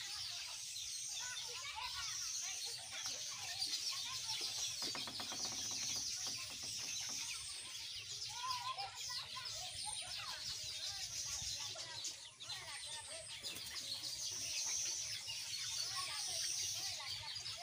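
A large flock of young broiler chickens cheeping and clucking in a continuous chatter. A high hiss swells and fades every two to three seconds behind it.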